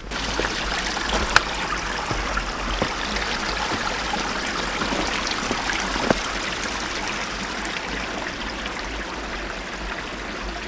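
Small forest creek running over rocks: a steady trickling, babbling rush of water, with a couple of brief clicks.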